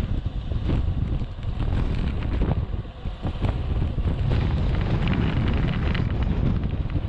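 Wind buffeting the camera microphone during a fast road-bike descent, a steady low rumble with irregular gusts.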